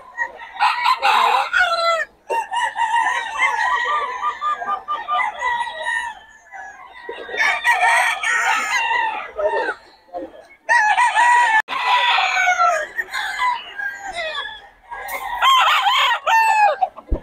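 Gamecocks (fighting roosters) crowing again and again, one crow overlapping the next with only brief lulls.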